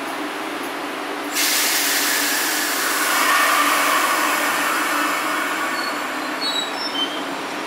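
MBTA Red Line subway train standing at the platform with a steady hum; about a second and a half in, a loud hiss of released air starts suddenly and carries for several seconds before easing, as the train gets ready to pull out.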